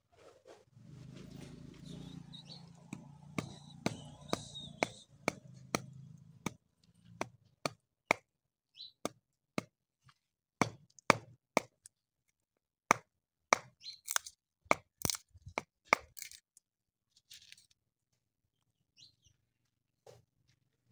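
Sharp knocks of a steel chisel blade being driven into a wooden board screwed to a cow's hoof, the wood cracking as it splits. The knocks come irregularly, about one or two a second, and are loudest in the later half. A low hum runs under the first few seconds.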